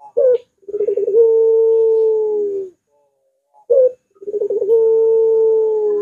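Barbary dove (ringneck dove) cooing twice: each time a short opening note followed by a long, drawn-out coo of about two seconds held at an even pitch, the long arching coo prized in a training recording for other doves.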